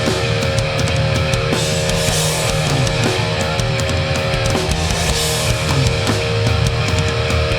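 Hardcore punk band playing live: distorted electric guitars hold a ringing chord while the drums keep hitting and the cymbals crash. This is the closing part of a song.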